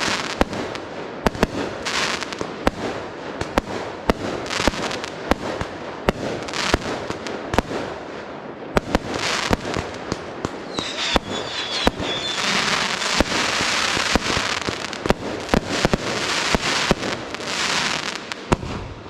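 Fireworks display: a steady run of sharp bangs from bursting shells over hissing, crackling stars. The crackle thickens into a dense sizzle over the last third, and there is a brief whistle a little past the middle.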